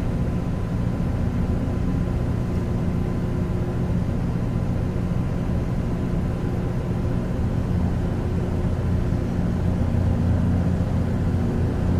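Car engine idling, a steady low hum that grows a little louder near the end.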